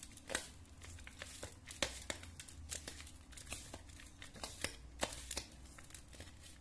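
A hand tossing and mixing chopped raw onion, capsicum, chilli and grated carrot in a steel plate: quick, irregular crisp rustles with light clicks of the pieces against the steel.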